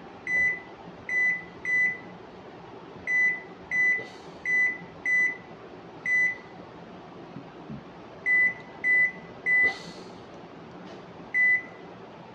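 Candy top-loading washing machine control panel beeping: about a dozen short single-pitch beeps in irregular groups of two or three, as the buttons are pressed to select the spin programme.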